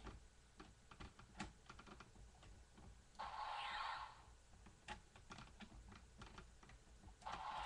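Plastic clicking from an Energon Omega Supreme toy as its wheel mechanism is worked by hand. There are many small clicks, with two louder raspy bursts of about a second each, a few seconds in and again near the end.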